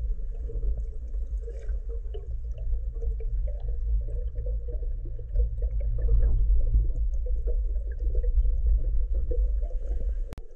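Muffled underwater sound picked up through a camera housing while a diver swims: a steady low rumble of moving water with faint crackling ticks, broken by a brief dropout near the end.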